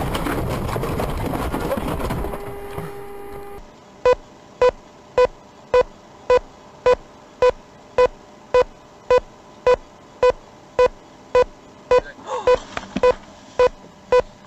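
A loud rushing noise that dies away over the first few seconds, then a steady run of short electronic beeps, a little under two a second, from a warning device inside a car.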